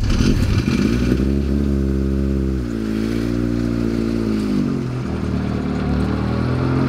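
Mazda MX-5 Mk3's four-cylinder engine being held at raised revs ahead of a sprint launch. The revs step up about a second in, drop back around the middle and climb again near the end.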